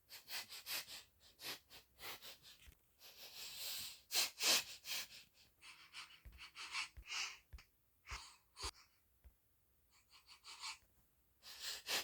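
Circus lion sniffing: runs of quick, noisy sniffs and snuffles through the nose, with a longer drawn breath about four seconds in and a short pause near ten seconds. A few soft low thumps come between about six and nine seconds.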